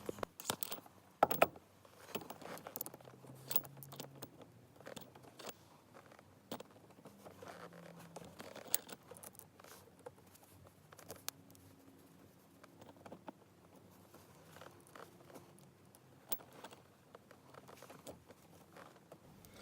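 The small screws that clamp an aftermarket shift knob onto its plastic adapter sleeve being driven in and tightened by hand: scattered faint clicks and scrapes of the tool against the screws and knob, with one sharp click about a second in.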